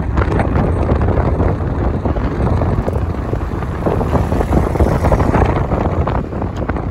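Wind rushing over a phone's microphone together with the road noise of a moving car.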